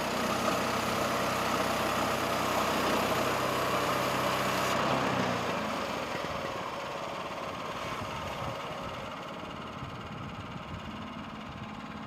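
The Honda gasoline engine of a Norwood LumberLite ML26 portable band sawmill running steadily. About five seconds in, the sound changes abruptly to a quieter, steady engine hum.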